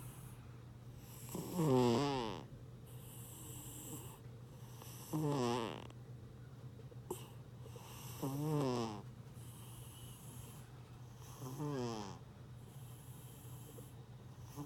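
An overweight domestic cat snoring in deep sleep. About every three seconds comes a short snore that falls in pitch, four in all with a fifth starting at the end, and a soft breathy hiss follows each one.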